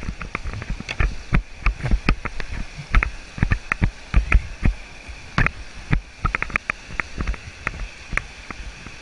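Whitewater rushing over a shallow rock rapid past a kayak, with frequent irregular splashes, knocks and low thumps from paddle strokes and water slapping the boat and camera.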